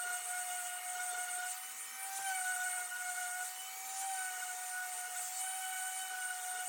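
A small high-speed power tool's motor running with a steady whine, its pitch wavering slightly as it takes a little load.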